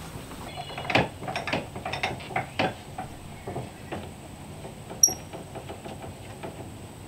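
Irregular wooden and metal knocks and clunks as a heavy log is levered with a cant hook on the steel bed of a Norwood LumberMate bandsaw mill and clamped in place. There is a sharp metallic ping about five seconds in.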